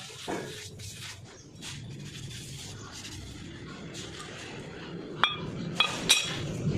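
Metal tools or brake parts clinking against metal: three sharp ringing clinks in quick succession near the end, over a low steady hum.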